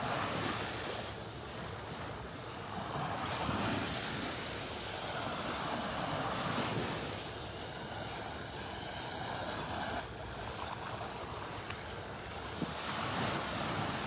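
Small waves breaking and washing up on a sandy beach, swelling and fading every few seconds, with some wind on the microphone.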